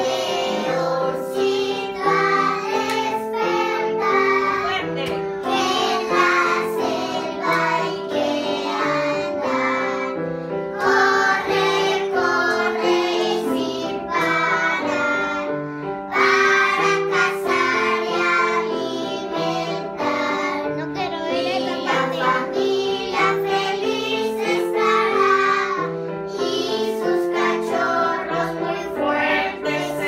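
Group of young children singing a song together, accompanied by an electronic keyboard.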